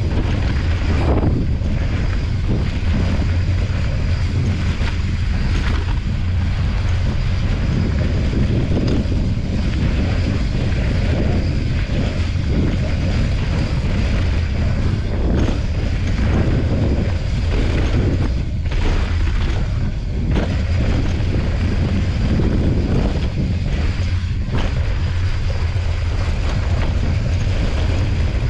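Wind buffeting the microphone of a mountain bike's action camera as it rides fast down a dirt singletrack, a steady low rumble mixed with the noise of the tyres rolling over dirt.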